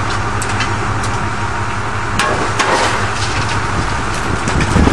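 Terex wheel loader's diesel engine running steadily, with scattered metal clanks and knocks, the loudest about two seconds in and just before the end.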